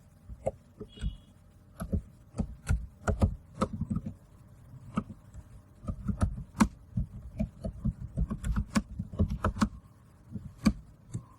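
Typing on a computer keyboard: a run of irregular key clicks with short pauses between bursts.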